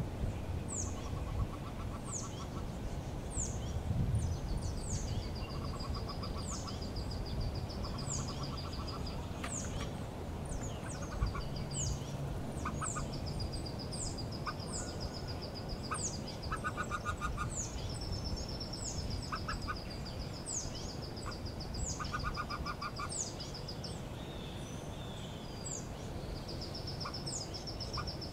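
Birds calling: a high, falling peep repeated about once a second, over long steady high trills and short runs of rapid, lower pulsing calls.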